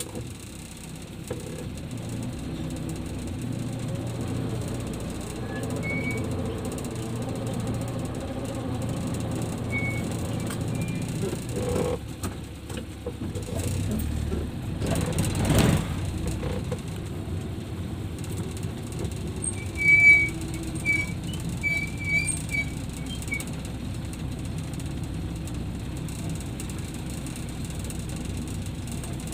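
Car engine running and road noise heard from inside the cabin while driving, with a louder rushing swell about halfway through and a few short high squeaks a little after.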